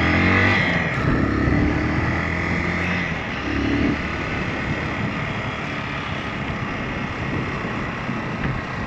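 Low-powered motorcycle running on the move, its engine note rising and falling in the first few seconds, with steady wind rushing on the microphone.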